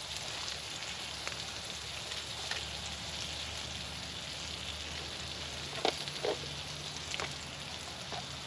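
Eggs with jalapeños and cheese frying in a small pan on a camp stove, a steady sizzle. A few light clicks and rustles about six seconds in come from small gear being handled.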